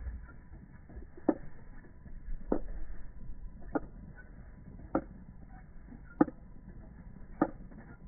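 Six sharp ticks, evenly spaced about 1.2 seconds apart, over a faint low rumble.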